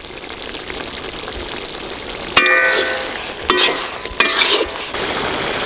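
Masala gravy sizzling and bubbling in a large iron wok, growing louder. A steel ladle stirs it, clanking against the pan with a ringing metallic note about two seconds in, then twice more.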